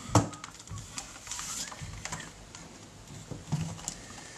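Scattered light clicks and taps of hands handling tools and parts, with one sharper click about a quarter second in.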